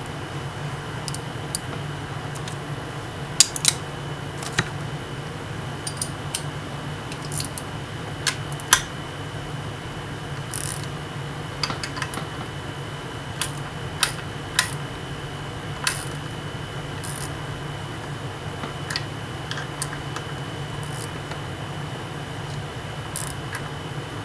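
Scattered, irregular clicks and clinks of metal hand tools (sockets, wrench and extension) working on an outboard's lower unit, over a steady low hum and a faint steady high tone.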